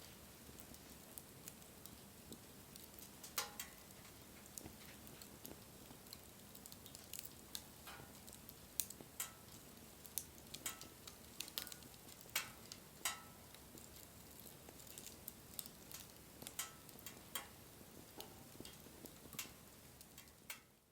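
Wood bonfire burning: irregular sharp crackles and pops over a soft steady hiss of flame, fading out near the end.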